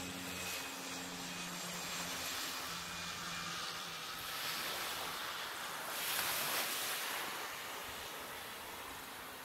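Small twin-engine propeller plane droning overhead, a steady hum that fades away over the first few seconds as it flies off. Small waves washing on the shore and wind on the microphone fill the rest, with a louder rush about six seconds in.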